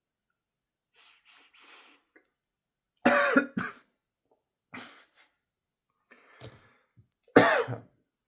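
A man sniffs sharply three times, then coughs in a series of harsh coughs, the loudest about three seconds in and near the end. The coughing comes from inhaling too much of what he has just snorted up his nose.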